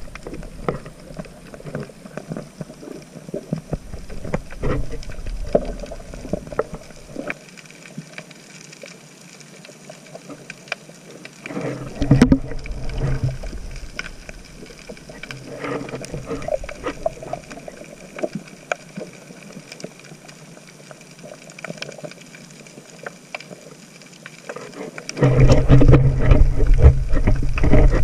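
Underwater sound heard through an action camera's housing: a muffled water hiss with scattered clicks and crackles, a short burst of bubbling and water movement about twelve seconds in, and a louder, low rush of water and bubbles near the end.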